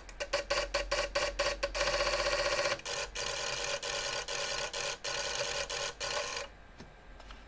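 Xiegu G90 transceiver's internal automatic antenna tuner searching for a match: its relays click rapidly, run together into a fast chatter about two seconds in, and stop about six and a half seconds in.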